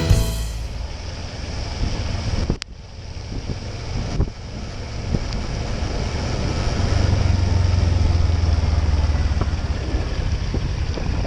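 Wind buffeting the microphone over a steady low rumble, with a single sharp click about two and a half seconds in.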